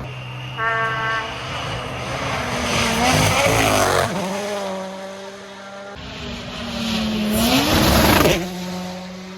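WRC Rally1 cars going past at full speed on a gravel stage, two passes in turn. Each time the engine note grows to a peak with a rush of tyre and gravel noise as the car goes by, then drops in pitch as it draws away.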